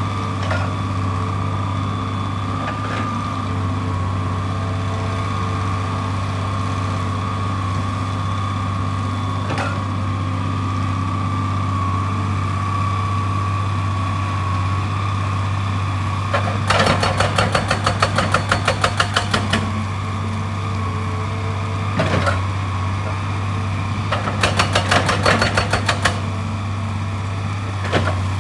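Heavy excavator engine running steadily, with a few single knocks. In the second half there are two bursts of rapid, even hammering on rock, about eight blows a second, each lasting two to three seconds.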